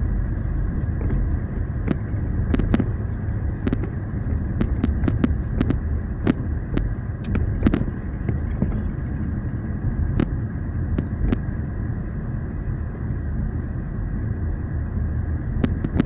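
Steady low road and engine rumble heard inside a moving car's cabin, with a scattering of sharp clicks or knocks through the first two-thirds.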